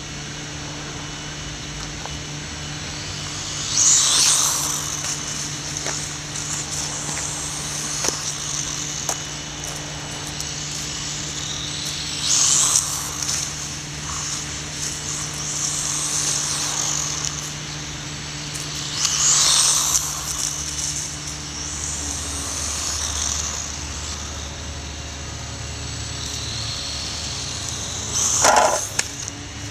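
Brushless electric motor of a Losi Micro Desert Truck RC truck, a high-pitched whine that swells and fades again and again as the truck speeds past, with a short sharp clatter near the end.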